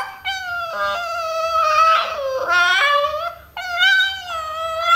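Dog howling in about four long, wavering cries that bend up and down in pitch, the 'talking' howl it gives in answer to its owner's coaxing.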